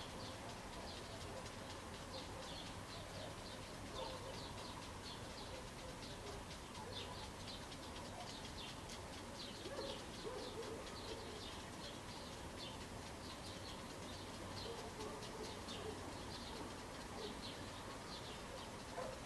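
Birds chirping in many short, high calls all through, with a dove's low coo now and then, over a faint steady background hum.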